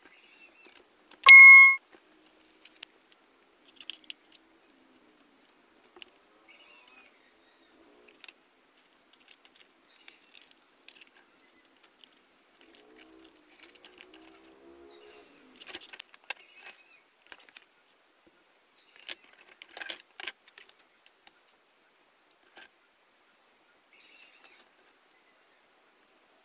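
A short, loud electronic beep about a second in, then sparse faint taps, clicks and rustles of card and paper being handled and set down on a table.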